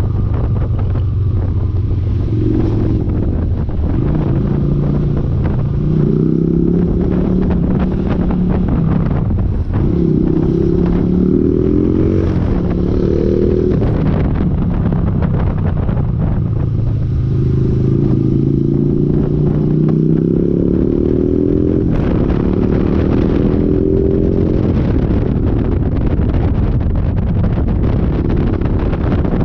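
Yamaha Virago 250's air-cooled V-twin engine running on the move. It runs low and steady for the first couple of seconds, then climbs in pitch again and again as it accelerates through the gears, with short drops at each shift.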